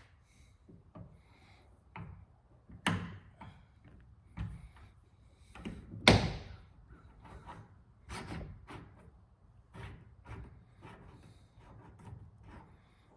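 A run of knocks and clunks, with a sharp knock about three seconds in and one loud slam about six seconds in.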